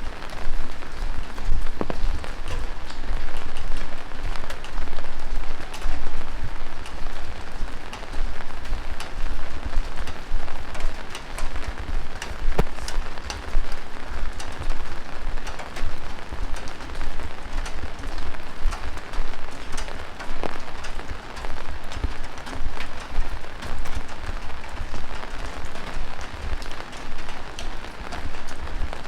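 Heavy rain falling steadily, a dense hiss with many separate close drop hits ticking through it.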